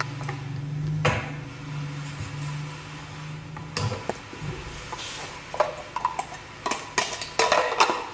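Hard parts of a manual meat grinder knocking and clattering as they are fitted together by hand, with a sharp knock about a second in and a busier run of clicks near the end. A steady low hum sounds under the first four seconds, then stops.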